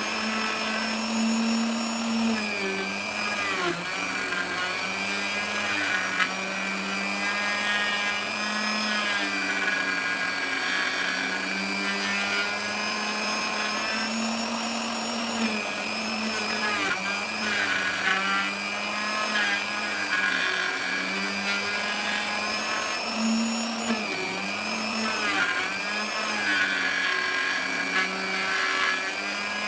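Electric power tool cutting into teak, its motor running steadily with a whine whose pitch dips again and again under load and recovers.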